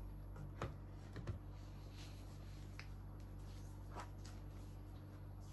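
A few faint, short clicks scattered over a steady low hum.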